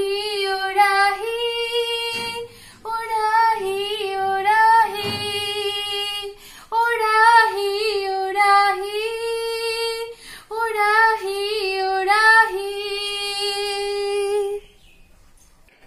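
A woman singing unaccompanied in a high voice with a wavering, ornamented melody, in four long phrases with short breaths between them. The singing stops about a second before the end.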